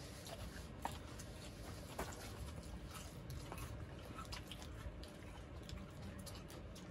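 A small dog biting and chewing a piece of raw napa cabbage held out by hand, with faint scattered crunches and clicks over a low steady background hum.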